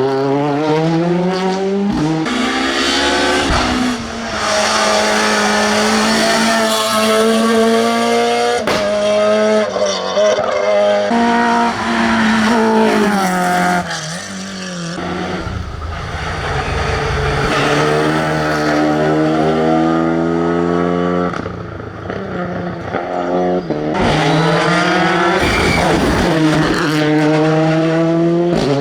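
Rally car engines on a tarmac stage, revved hard. The pitch climbs and falls again and again, with short breaks where the driver changes gear or lifts off.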